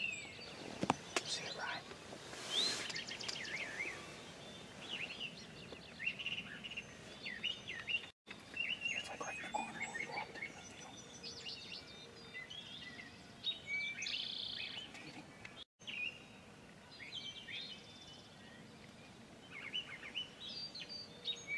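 Several songbirds singing over one another, many short chirps and whistles, fairly faint over a low background hiss. The sound drops out for an instant twice.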